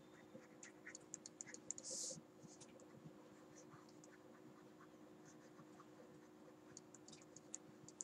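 Faint taps and scratches of a stylus tip on a tablet screen during handwriting: a quick run of small ticks with a short hiss in the first two seconds, then another run of ticks near the end, over a faint steady hum.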